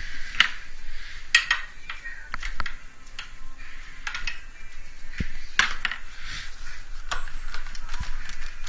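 Irregular clicks, knocks and rattles of hard intake parts being handled and worked loose by hand: the stock air intake housing is being rocked and pulled out of the engine bay.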